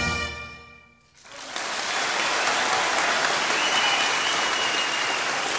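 A pipe band's bagpipes end their tune, with the last chord dying away over about a second into near silence. Then a live audience breaks into steady applause, with a thin high whistle held for a moment near the middle.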